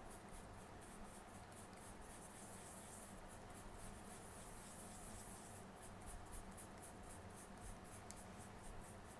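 Faint, rhythmic scratching of a paintbrush stirring wet instant coffee paste in a small bowl, several quick strokes a second, over a low steady room hum.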